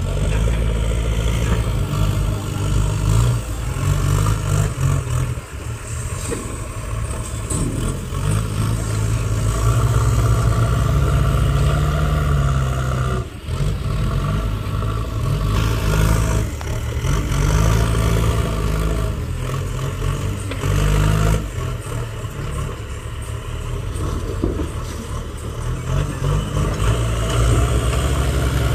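Diesel engines of JCB 3DX backhoe loaders working under load, revving up and easing back as they dig soil and lift full loader buckets, with a few brief knocks.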